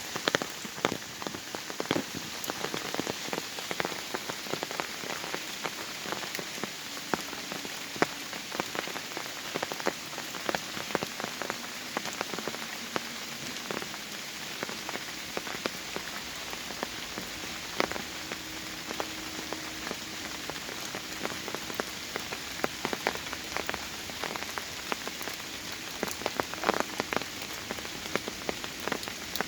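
Autumn rain falling in a forest: a steady hiss of rain with many sharp, irregular drops striking close by.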